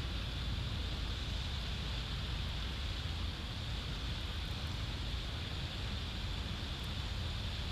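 Wind on an outdoor camera microphone: a steady low rumble with an even hiss above it.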